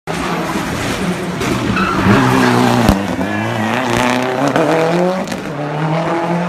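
Competition car engine at full throttle through a hillclimb corner, its pitch climbing and dropping several times with gear changes and lifts, with tyres squealing. A sharp crack about three seconds in.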